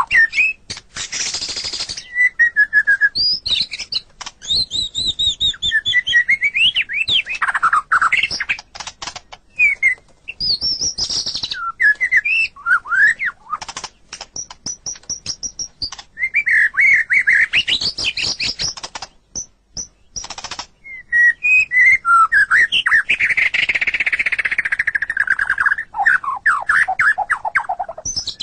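White-rumped shama (murai batu) singing a long, varied song of rich whistles, fast trills and sweeping phrases, with short pauses between bursts.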